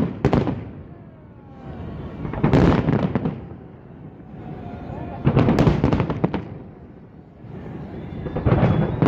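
Fireworks salute going off in volleys about every three seconds, each a cluster of bangs and crackles, four in all. A crowd's voices carry on between the volleys.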